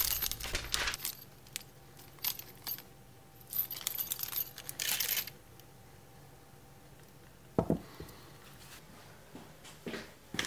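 Small metal hardware, an Allen wrench and screws, jingling inside a clear plastic bag as it is handled, in several short spells in the first half. A few light knocks follow later.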